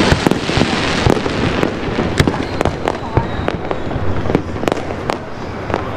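Aerial fireworks shells bursting in quick succession: a rapid, irregular series of sharp bangs over a rolling rumble, with a hissing crackle strongest in the first second or so.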